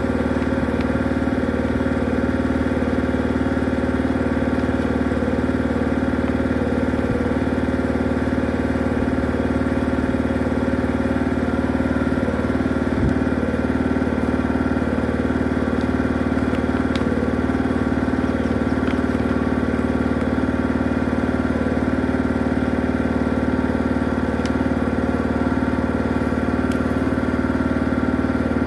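Motor of a drain-cleaning machine running steadily at one constant pitch, with a few faint clicks.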